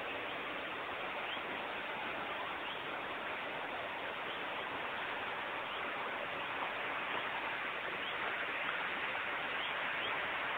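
Large burning fuel-depot fire: a steady rushing noise without a break, swelling slightly near the end.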